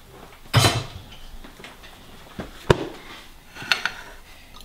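Kitchen clatter: a metal cooking pot set down with a loud clunk about half a second in, a single sharp knock about halfway through, then a few light clinks of a fork against a ceramic plate near the end.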